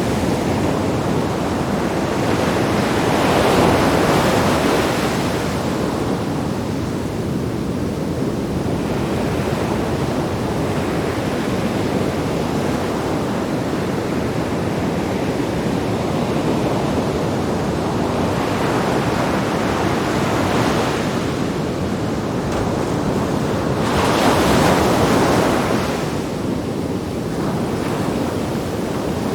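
Sea waves breaking on rocks, a continuous rushing surf with two bigger breakers swelling up, a few seconds in and again near the end. Wind buffets the microphone throughout.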